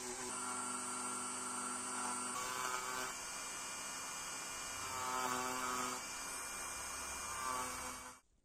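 Hand-held rotary tool running with a steady high whine, growing louder three times as its small spinning wheel works the metal of a safety-razor head. It cuts off abruptly near the end.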